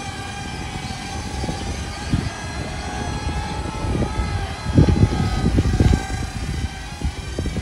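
Small electric motor of a micro foam RC Boeing 727 model whining in flight: a steady tone with overtones that wavers slightly in pitch as the plane passes. Low rumbling from wind on the microphone swells about five seconds in.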